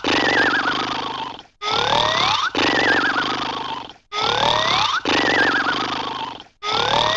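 A cartoon-style comedy sound effect played on a loop, repeating about every two and a half seconds. Each repeat is a rising whistle-like glide, then a falling warbling glide, over a rough growling noise, with a brief gap between repeats.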